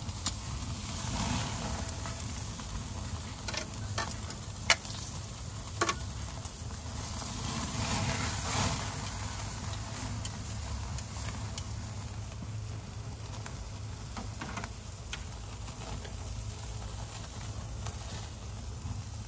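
Ribeye steak sizzling on a grill over oak embers: a steady hiss with a few sharp pops between about three and six seconds in, and two swells of louder sizzling, near the start and about eight seconds in.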